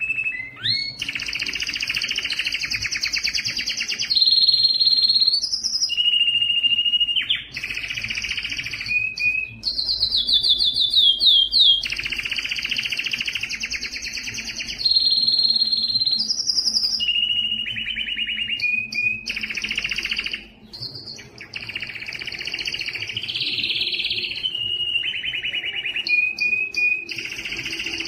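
Male domestic canary singing its courtship song: fast rolling trills of rapidly repeated notes alternating with held whistled notes, changing phrase every second or two, with a brief pause about twenty seconds in.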